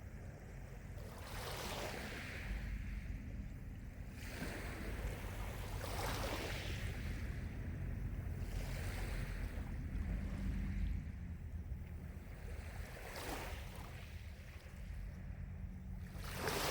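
Gentle lake waves lapping, each wave a short hissing wash every two to three seconds, over a steady low rumble.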